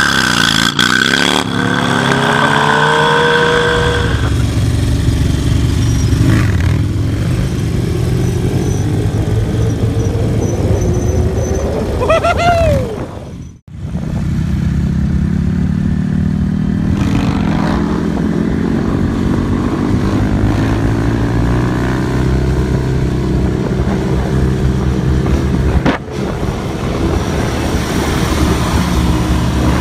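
V-twin cruiser motorcycle engines revving and running under throttle. In the first part the pitch rises and falls over the opening seconds and climbs once more before cutting off abruptly about a third of the way in. After that a second engine runs steadily, with a brief dip near the end.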